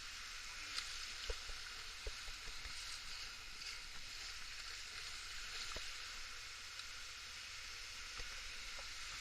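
Steady hiss of rushing river water, with a few soft knocks, three of them clearer than the rest.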